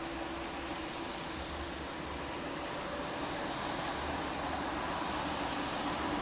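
SNCF RGP diesel railcar X 2770 approaching, its engine a steady drone that grows slowly louder.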